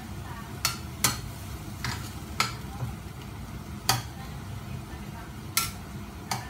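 A metal spatula stirring shredded chicken in broth in a stainless steel frying pan, with about seven sharp, irregular clinks of the spatula against the pan over a steady low sizzle.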